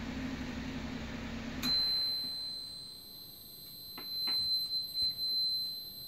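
An electric fan running with a steady hum cuts out with a click about a second and a half in, as the fire alarm relay shuts it down on activation. A steady high-pitched alarm buzzer tone from the fire alarm panel starts at the same moment and holds, with a few faint clicks after it.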